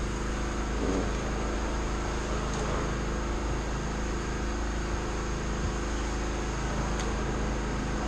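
Steady machinery hum with several steady low tones, and a faint click about seven seconds in.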